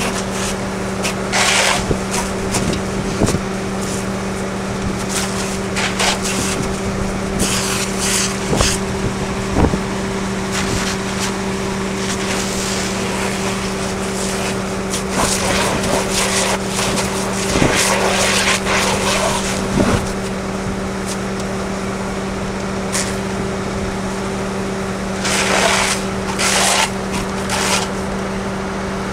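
An engine drones at a constant speed, with a fire hose hissing and spattering as water is sprayed onto burning wreckage in irregular bursts.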